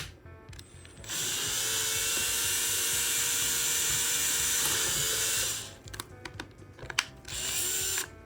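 Electric drill running steadily for about four seconds, then a second short burst near the end, with a few clicks between: drilling rivet holes through a laptop's hinge supports.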